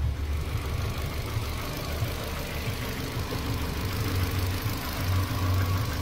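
2012 Ford Fiesta's four-cylinder petrol engine idling with a misfire on cylinder 3, its low beat uneven. The misfire comes from a failed head gasket letting coolant into that cylinder.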